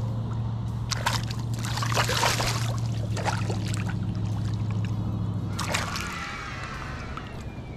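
Water splashing in two bursts, one about a second in lasting a couple of seconds and a shorter one near six seconds, over a steady low motor hum that eases off about six seconds in.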